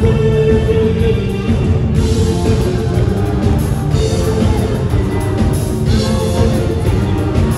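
Loud live Persian pop dance music from a band with drum kit, hand drums and keyboard, a man singing into a microphone, heard from within the crowd.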